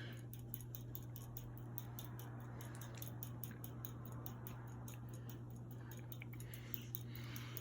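Hunter Savoy ceiling fan running on low speed: a quiet, steady motor hum with a faint, regular ticking several times a second.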